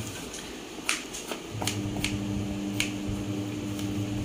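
Kitchen knife cutting through a bottle gourd onto a plastic chopping board: about five sharp, irregularly spaced clicks as the blade meets the board. A steady low hum starts about a second and a half in.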